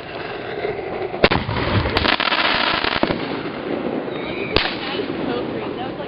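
Consumer fireworks going off: a sharp bang about a second in, then a couple of seconds of dense crackling, and another sharp bang about four and a half seconds in.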